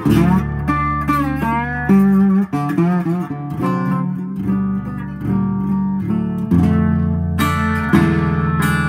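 Biscuit resonator guitar with bronze strings played in a bluesy style with slide, picked notes and chords with some notes gliding in pitch. It is heard amplified through a Lace Ultra Slim pickup into a Fender amp with reverb and a little delay.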